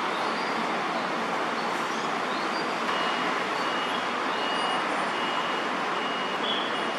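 Steady hum of city traffic, with a few faint high bird chirps and a thin, steady high insect-like tone over it.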